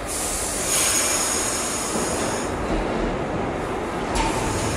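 New York City IRT subway train (R62-family cars) rolling through the station with its wheels squealing on the rails. A high squeal rises just under a second in and fades about two and a half seconds in, and a shorter squeal comes near the end, over the steady rolling noise of the cars.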